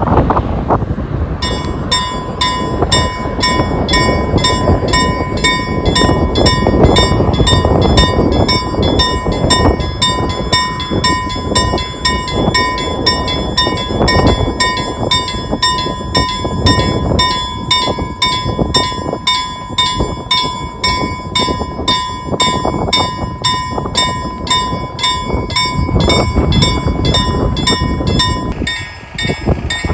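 Level crossing warning bell ringing in fast, even strokes, starting about a second and a half in, as the half barriers come down. Wind buffets the microphone underneath.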